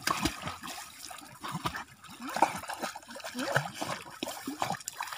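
Dogs swimming through lake water, their paddling making irregular splashes, plops and trickling.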